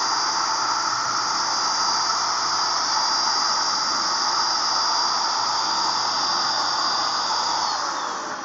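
RexBeti 700-watt HVLP electric paint spray gun running steadily while spraying paint: a loud blower hiss with a steady high whine. Near the end it is switched off, and the motor winds down, its whine falling in pitch as it fades.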